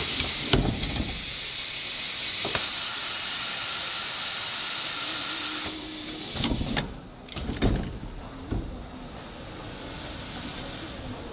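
Door gasket welding machine's pneumatic clamps clacking shut, then a steady hiss of compressed air that gets louder about two and a half seconds in and stops suddenly a few seconds later. A few clacks and knocks follow as the clamps open and the welded gasket corner is handled.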